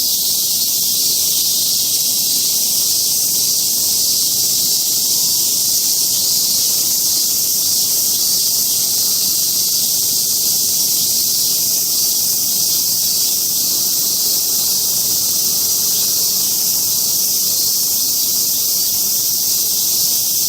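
Chorus of cicadas singing: a loud, steady high-pitched buzzing hiss that never lets up.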